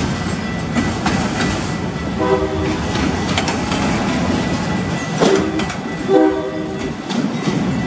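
Autorack freight cars rolling past: a steady rumble of steel wheels on rail with clicks over the joints. Three short pitched tones cut in, about two, five and six seconds in.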